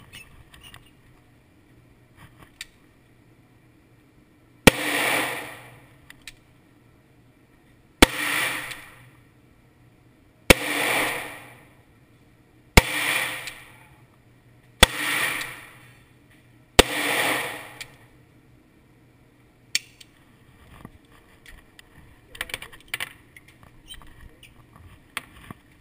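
Handgun fired six times at a steady pace, two to three seconds apart, each crack followed by about a second of echo in the range booth. Afterwards a click and some light metallic rattling as the pistol is handled.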